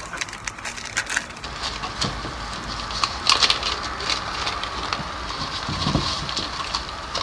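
Plastic packet of cement oxide powder crinkling and rustling in rubber-gloved hands as it is opened and emptied into a plastic mixing cup, with many small scattered clicks.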